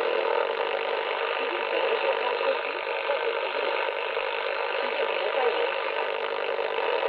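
Icom IC-718 receiver playing AM shortwave in the 41-metre broadcast band through its speaker while the dial is tuned: a steady wash of static and hiss, with faint fragments of broadcast voices coming through. The reception is rather noisy.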